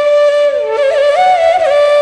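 Solo flute melody with a long held note, then quick ornamented turns up and down about halfway through, settling on another held note near the end.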